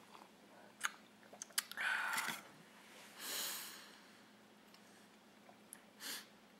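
A person sipping from a wine glass, with a few light clicks, then a long breathy exhale about three seconds in and a shorter breath near the end.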